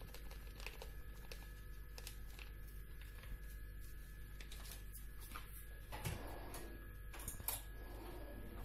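Quiet kitchen room tone: a steady low electrical hum with a thin high whine, and a few faint ticks and soft rustles, the loudest a little after the middle.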